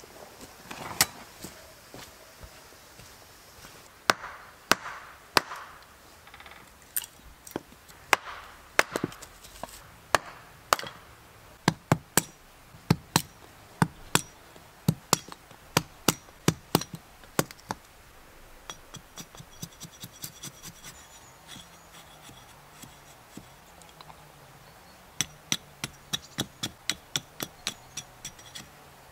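Hatchet splitting dry wooden offcuts into kindling on a stump: sharp wooden knocks, spaced unevenly at first, then a quick run of light strokes about four a second near the end, with wood being handled in between.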